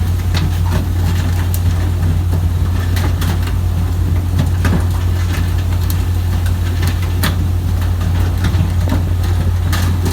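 A skipjack pole-and-line fishing boat's engine running steadily, with a constant low drone, under scattered sharp clicks and knocks.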